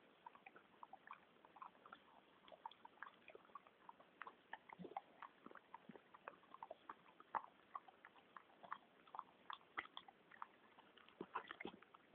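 Staffordshire bull terrier gnawing a chewy stick: faint, irregular crunching clicks, several a second.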